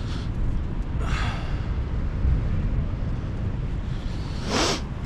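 Wind buffeting the microphone, a steady low rumble with gusts. About four and a half seconds in comes a short, sharp swish as a sea-fishing rod is swung through a cast off the rocks.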